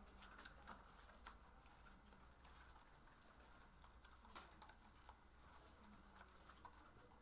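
Near silence: faint, scattered light taps and rustles of paper and cardboard as small paper tank fireworks are assembled by hand, over a low steady hum.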